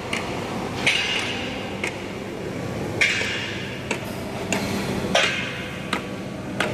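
A hammer striking steel, about nine ringing blows at irregular intervals of roughly a second, over a steady low hum.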